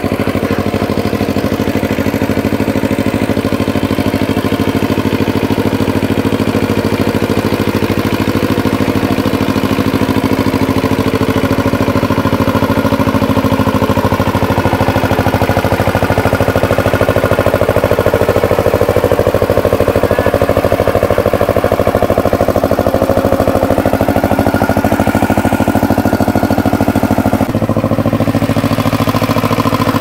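Two-wheel power tiller's single-cylinder diesel engine running steadily under load as it ploughs through flooded paddy mud. Near the end the engine note changes abruptly.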